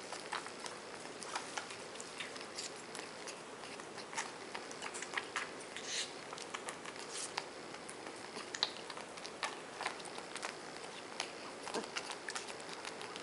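Baby capuchin monkey suckling formula from a bottle nipple: faint, irregular small clicks and smacks of its mouth.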